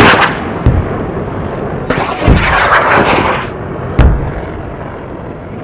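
Loud booming blasts over a continuous noisy roar, with three heavy low thuds about a second and a half apart.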